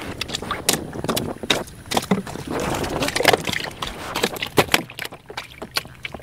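Irregular knocks and water splashes in and around a wooden fishing canoe, busiest around the middle.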